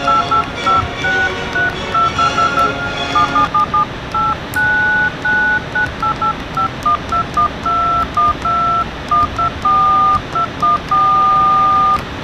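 Mobile phone keypad beeping as its keys are pressed: a string of two-tone dialing beeps of uneven length, some short and repeated on the same key, a few held for most of a second. Music plays over the beeps for the first few seconds, then stops, leaving a faint steady rush beneath them.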